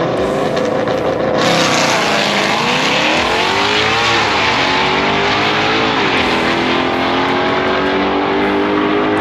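A True Street drag car launching and accelerating hard down the strip. The engine pitch climbs, drops at a gear shift about three seconds in, climbs again, drops at a second shift about six seconds in, and then holds steady.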